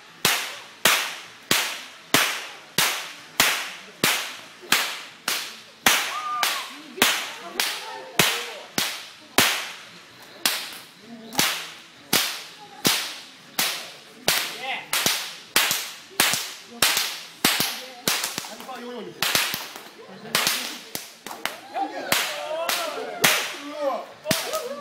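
A pair of Australian stockwhips cracked in a steady rhythm, about three sharp cracks every two seconds, kept up without a break; towards the end a few cracks come in quick pairs.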